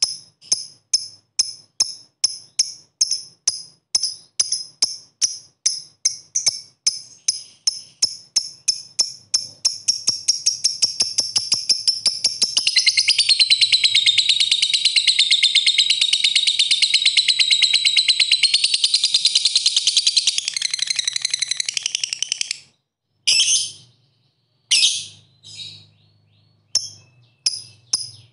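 Fischer's lovebird calling: a run of sharp ticking notes ('ngetik') that speed up over about twelve seconds and run together into one long continuous rattling trill, the 'ngekek', lasting about ten seconds. It breaks off into a few separate shrill chirps near the end.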